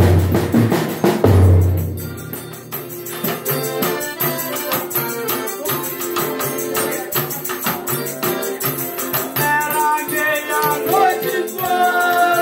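A Folia de Reis band playing: a few heavy drum beats at the start, then a steady rhythm of tambourine-like percussion under held instrument notes. Voices join in singing about three-quarters of the way through.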